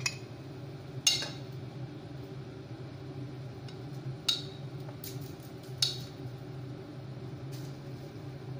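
A few sharp clinks of kitchenware, metal and glass dishes or utensils being handled around a cooking pot, spaced a second or more apart over a steady low kitchen hum.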